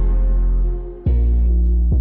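Background music: sustained, layered notes over a deep bass, changing chord about every half second, with a brief drop in loudness about a second in.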